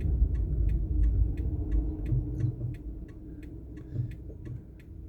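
Car turn-signal indicator ticking steadily inside the cabin, about three clicks a second, over the low rumble of the idling car.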